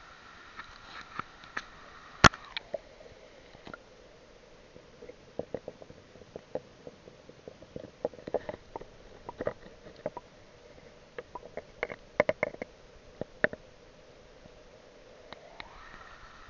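Stream water heard muffled from inside a cheap action camera's waterproof case while it is held underwater: a steady dull tone that drops in pitch as the case goes under, about two and a half seconds in, and rises again near the end. Scattered clicks and knocks run throughout, the loudest a sharp knock just after two seconds in.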